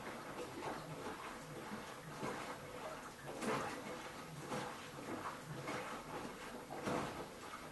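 Hoover washing machine running a 14-minute quick wash: water sloshing in the turning drum in repeated, irregular swishes over a faint steady motor hum.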